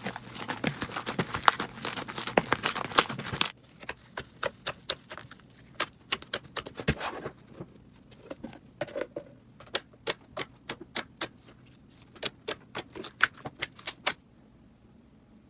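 Slime being squeezed and worked by hand, making sharp clicks and pops. The clicks come thick and fast at first, then after about three and a half seconds they turn sparse and separate, and they stop about a second before the end.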